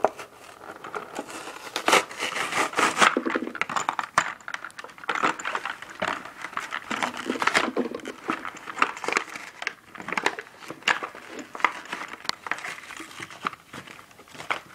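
A toy blister pack being torn open by hand: the card backing tearing and peeling away from the plastic tray, the plastic crinkling and crackling unevenly.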